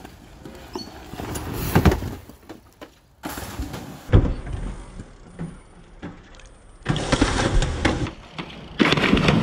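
Bicycles rolling over a concrete path and a wooden deck, with clicking and rattling from the bikes and a few sharp knocks, across several short cuts. Near the end a loud rush of water noise as a rider lands in the reservoir off the jump.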